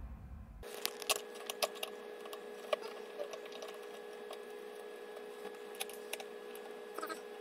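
Fast-forwarded sounds of hand assembly on a gaming chair seat: scattered small clicks and taps of screws and plastic parts being handled, over a steady faint hum, starting about half a second in.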